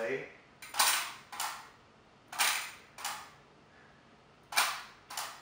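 Lionel operating milk car's mechanism clacking about six times at uneven intervals as the milkman, struggling on DC power, throws the milk cans out of the car.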